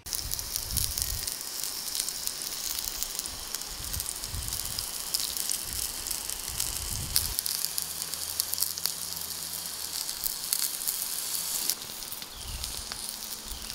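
Beef steaks sizzling on a grill grate over hot charcoal: a steady hiss with fine crackles of fat on the heat.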